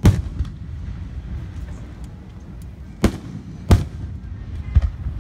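Aerial firework shells bursting: a loud bang right at the start, then three more bangs in quick succession about three, three and three-quarter, and nearly five seconds in.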